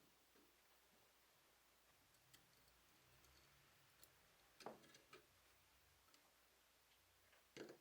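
Near silence broken by a few faint clicks and taps of small tools and camera parts being handled, a short cluster about four and a half seconds in and another near the end.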